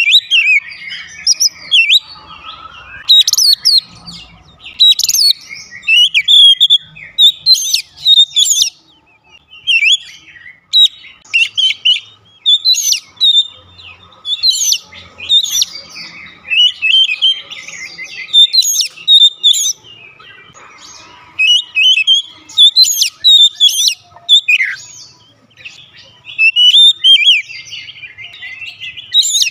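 Oriental magpie-robin singing a loud, rapid, varied song of high whistled and chattering notes, phrase after phrase with short pauses between them.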